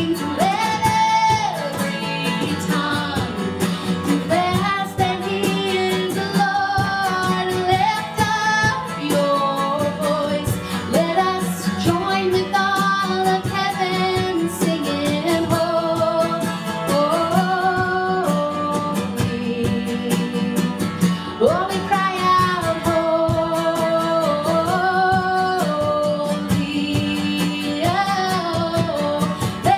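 A woman sings a worship song into a microphone, holding and sliding between long notes, with acoustic guitar accompaniment.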